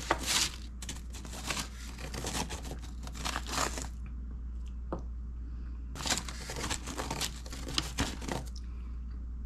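Food packaging crinkling and rustling as it is handled, in two stretches with a short lull between.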